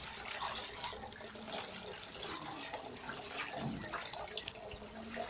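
Water splashing and sloshing as wet batik cloth is lifted, swished and rinsed in a tub of water, with irregular splashes and drips throughout.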